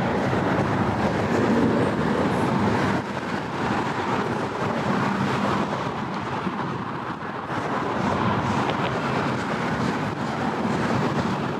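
Freight train boxcars rolling past on the rails: a steady, continuous rolling noise of wheels and cars.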